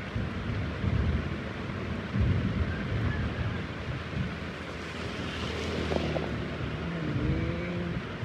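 Heavy rain falling steadily, with low rolling thunder that swells about a second in and again just after two seconds. In the second half a faint humming tone slides and steps in pitch under the rain.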